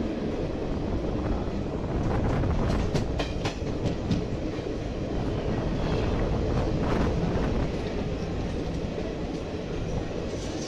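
Express train running at speed, heard from an open coach door: a steady rumble of wheels on the rails with irregular clicks from wheels passing over rail joints, clustered a couple of seconds in and again later.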